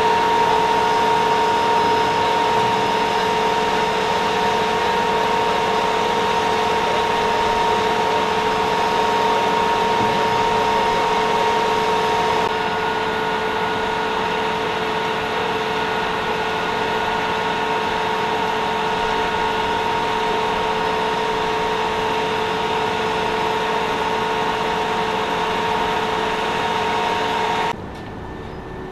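Steady drone of running machinery with a constant high whine, an engine or motor held at one speed. It steps down in level about halfway, and the whine cuts off shortly before the end.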